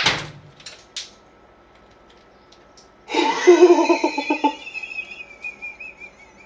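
A sharp knock at the start, then, about three seconds in, a wavering pitched sound that thins into a high, wobbling whistle slowly falling in pitch over about two seconds.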